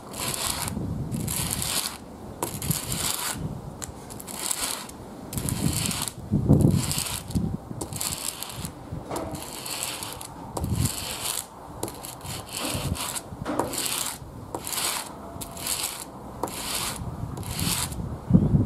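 A steel flat-blade screwdriver tip is rubbed back and forth on sandpaper by hand, making repeated scraping strokes a little more than one a second as the worn tip is ground flat. There are a couple of louder dull knocks, one about a third of the way in and one near the end.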